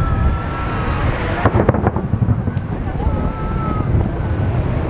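Fireworks going off: deep booms from shells bursting, with a long whistle from a whistling shell at the start and another about three seconds in, and a quick cluster of sharp cracks about a second and a half in.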